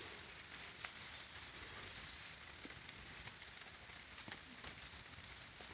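A bird giving a quick series of thin, high-pitched short calls in the first two seconds, over a soft steady hiss with scattered light taps of rain.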